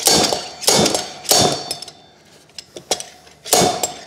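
Slide hammer on a blind bearing puller clanking as its weight is driven against the stop: three blows in quick succession, a pause with small ticks, then another blow near the end, each with a short metallic ring. The bearing is being drawn slowly out of the wheel hub and is almost out.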